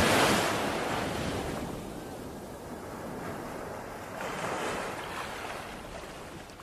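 Sea waves breaking and washing up on a beach, one surge at the start and another about four seconds in, fading away near the end.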